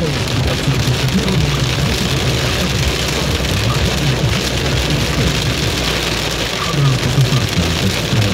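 Heavy cloudburst rain drumming on a car's roof and windshield, heard from inside the moving car, with the car's low running noise underneath.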